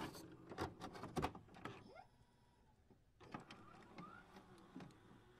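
Near silence with a few faint scattered clicks and short chirps, most of them in the first second and a half.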